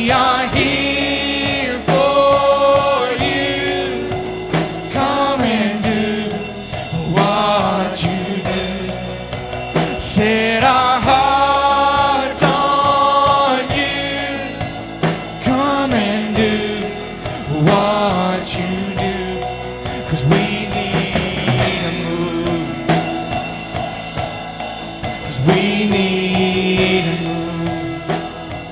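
Live worship band playing a gospel song: voices singing over acoustic guitar, bass guitar and a drum kit.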